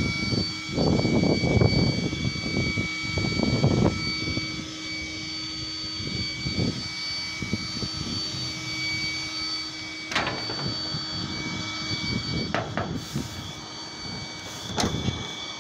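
Steady whine with several thin high tones from a telecom rectifier cabinet's fan-cooled power modules, under loud irregular rumbling for the first four seconds. From about ten seconds in come several sharp metallic clicks as the cabinet's door handle is worked.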